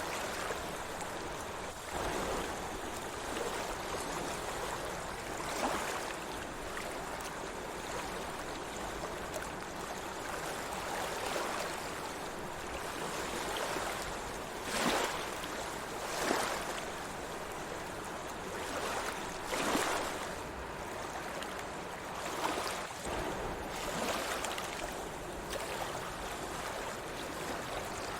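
Small sea waves washing and lapping steadily, with several sharper splashes, the loudest about halfway through and again near two-thirds of the way.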